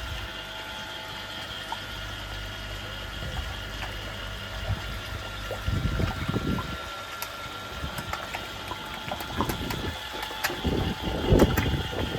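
Steady hum and running water of koi pond equipment, with several held tones over a low rumble. From about halfway, irregular knocks and rumbling bumps of handling come in over it, loudest near the end.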